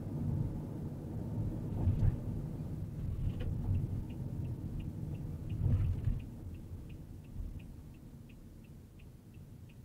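Car interior with low road and engine rumble and a couple of louder bumps, easing off about two-thirds of the way in as the car slows. From about a third of the way in, the turn-signal indicator ticks steadily, about three ticks a second.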